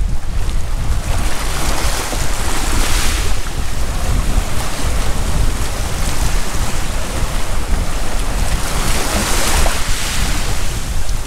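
Sea surf breaking and washing up the shore, with wind rumbling on the microphone; the wash swells up about three seconds in and again near the end.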